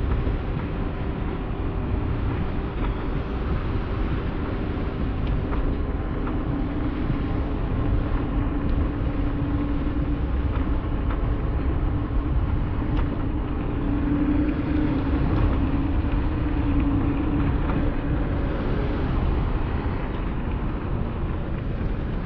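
Steady low rumble of wind and motion noise on a moving action camera's microphone, with a faint low hum that comes and goes.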